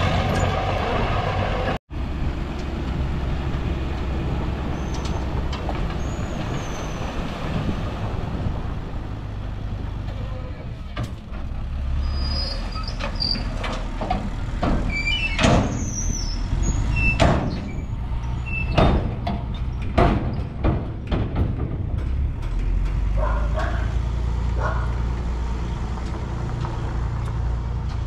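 Mini bulldozer's engine running steadily, with a string of sharp metallic clanks and short squeaks from the machine working, mostly in the middle stretch.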